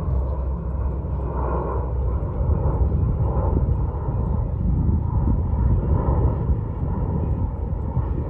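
Wind buffeting the microphone: a low, gusty rumble that swells and eases.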